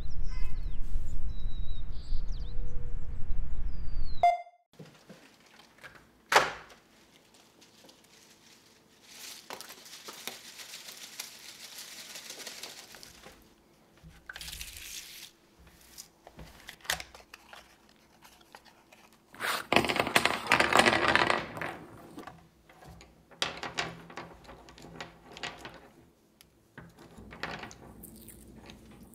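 For about four seconds, wind rumbles on the microphone with a few bird chirps. It cuts suddenly to a quiet room and paper handling: a sharp knock, crinkling and rustling of paper, and a loud stretch of tearing paper about twenty seconds in. Near the end come short scratchy tears as paper wrappers are peeled off wax crayons.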